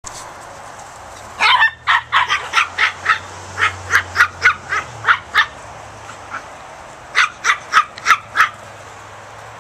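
Small dog yapping: quick, high-pitched barks, about three a second, in two runs with a short pause between them.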